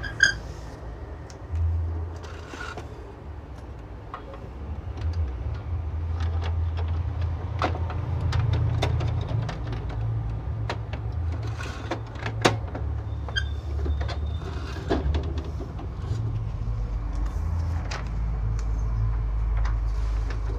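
Scattered sharp plastic clicks and knocks as an HP inkjet ink cartridge is handled and fitted back into the printer's cartridge bay, over a steady low hum.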